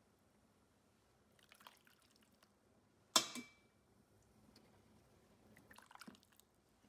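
Chicken broth ladled through a fine-mesh metal strainer into a steel pot, pouring and dripping faintly, with one sharp metallic clink about three seconds in.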